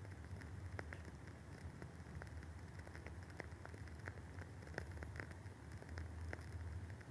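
Wooden wick of a WoodWick candle burning with soft, irregular crackles, several small pops a second over a low steady hum.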